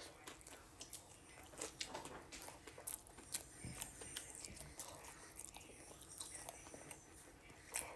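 Close-up mouth sounds of a person biting into and chewing a spicy chicken sandwich on a soft bun: a run of small wet clicks and smacks, with one sharper click about three seconds in.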